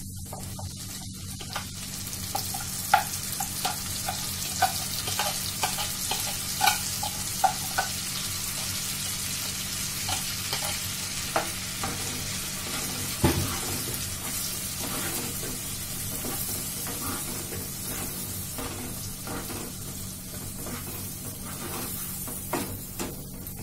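Pulped tomato sizzling as it fries in hot fat in a frying pan, stirred with a plastic spatula that clicks and knocks against the pan, most often in the first third, with one louder knock about halfway.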